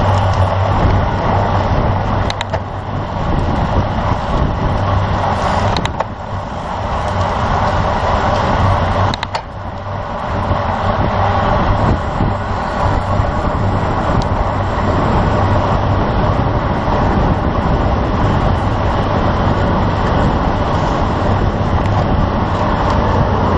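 Steady, loud wind rushing over the microphone of a camera riding along on a road bicycle, with brief dips about six and nine seconds in.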